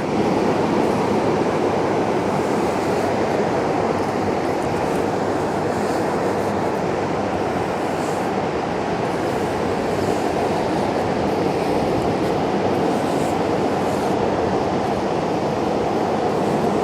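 Steady rushing noise of ocean surf and wind at the shore, even in level throughout.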